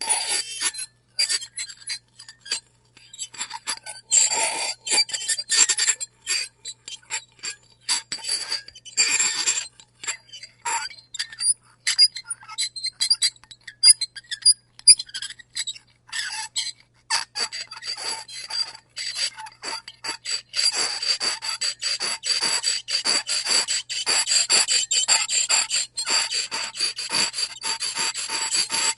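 A fork scraping across a plate in short, irregular strokes, with a high squeak ringing through them. Near the last third the scrapes come quickly, one after another, with hardly a gap.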